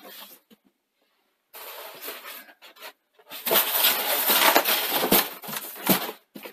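Polystyrene foam packing being pulled out of a cardboard box. Rustling at first, then loud dense scraping and squeaking of foam against foam and cardboard from about halfway in.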